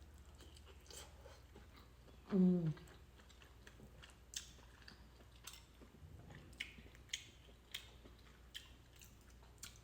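A person chewing king crab meat close to the microphone, with irregular wet mouth clicks and smacks. A brief voiced sound comes about two and a half seconds in.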